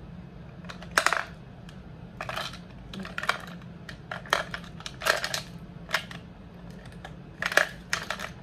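Lipstick tubes and makeup brushes clicking and clattering against each other as they are handled in a clear plastic makeup bag: several short clatters, roughly one a second.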